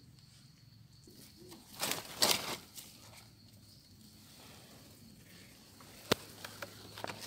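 Leaves and undergrowth rustle loudly in a short burst about two seconds in. Dry leaf litter crackles faintly as a gloved hand picks a mushroom from the forest floor, and there is one sharp click about six seconds in.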